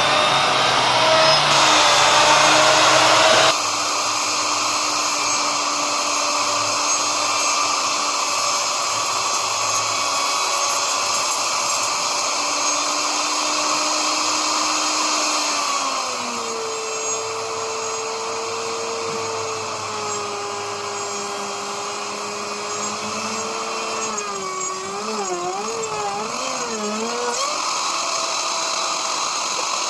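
Electric power tool running steadily with a motor whine. The pitch changes abruptly twice, and near the end it wavers up and down.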